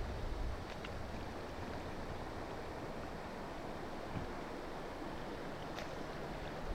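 Steady rush of river water flowing over the riffles, with a couple of faint clicks.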